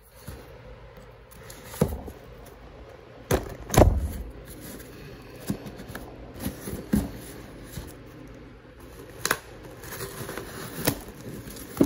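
A dull knife scraping and cutting at a cardboard box and its packaging, with irregular clicks, crinkles and knocks from handling it, the loudest a thump about four seconds in.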